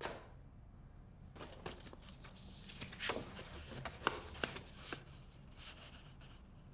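Paper rustling and crinkling as a stiff envelope is opened and a letter is drawn out, in a run of short crackles, loudest in the middle. A single thump at the very start.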